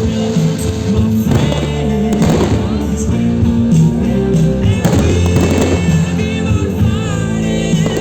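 Loud music, with fireworks bursting over it about four times.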